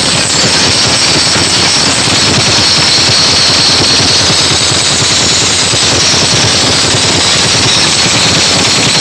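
DJ sound-system speaker boxes blasting hard bass at full volume, so overloaded on the microphone that the music comes through as a loud, steady distorted crackle and rattle.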